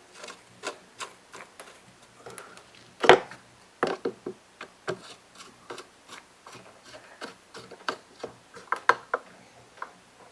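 Irregular small clicks and knocks of hand work on a leaf blower's carburetor mount, as the carburetor, gasket and fasteners are fitted and snugged down, with one louder knock about three seconds in.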